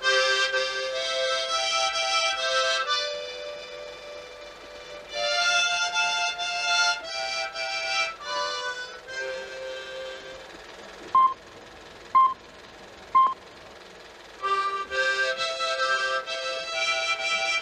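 Harmonica playing a slow tune in held chords, phrase by phrase. It pauses in the middle, where three short, loud, high beeps sound about a second apart, and then plays on.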